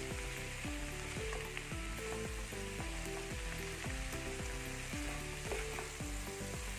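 Sliced cucumber sizzling as it is stir-fried in a pan with a spatula, the steady frying hiss running under background music with a stepping melody.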